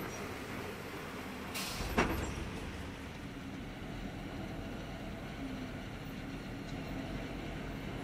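Steady low rumble of a vehicle engine running, with a short hiss and a sharp click about two seconds in.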